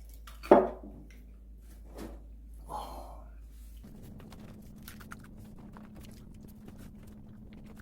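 Scattered soft clicks and taps of eating at a table, with one short, loud sound about half a second in.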